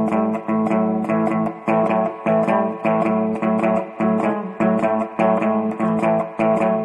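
Instrumental guitar music: a steady, quick run of plucked notes over a bass line.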